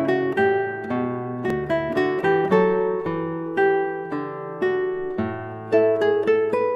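Background music: an acoustic guitar picking a melody, each note ringing and fading, a few notes a second.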